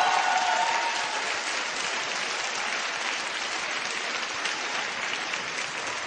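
Audience applauding, a little louder in the first second and then steady.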